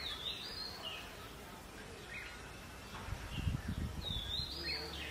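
Red-whiskered bulbul calling at its nest: a short, chirpy whistled phrase that dips and rises, heard at the start and again about four seconds later, with a few shorter notes between. Low rumbling thumps come in from about three seconds in.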